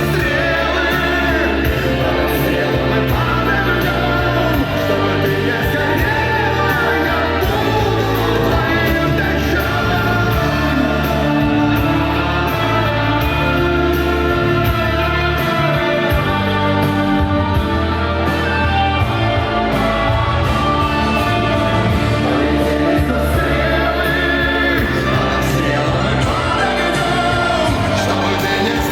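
Pop song with sung vocals over a full, steady band backing, with voices that sound like a group singing together.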